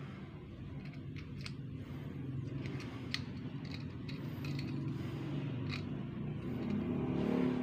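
Faint clicks and creaks from a styrofoam fishing float and its thin wire hook being handled and dipped into a can of paint, over a steady low hum. A low humming tone swells near the end.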